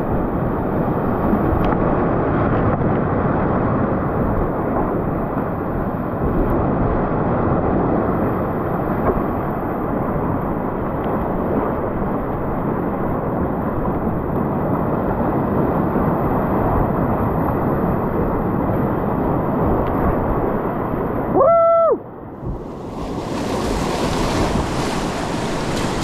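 Whitewater rapids rushing around a kayak, a steady loud roar of water on a GoPro's microphone with some wind noise. About three-quarters of the way through, a brief high tone sounds and the water noise drops away, then comes back with more hiss.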